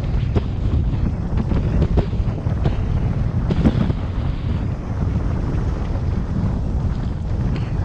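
Wind buffeting the microphone of a bike-mounted camera on a recumbent bicycle coasting fast downhill: a loud, steady low rumble of rushing air, with a few scattered light knocks.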